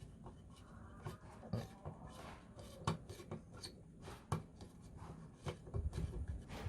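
Hand work on the parts of a rusty antique fire bell: irregular clicks and taps with some scraping between them.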